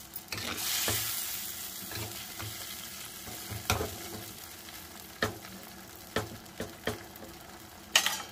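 Tomato tempering sizzling in oil in a pan while it is stirred and mashed with a spoon. The sizzle is strongest in the first second or so, and the spoon knocks sharply against the pan about seven times, loudest near the end.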